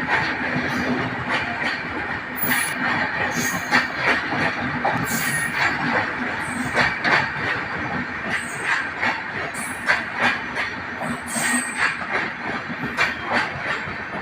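Telangana Express train running on the track: a steady rumble with irregular knocks and clatter of wheels over rail joints, and a few brief high-pitched wheel squeals.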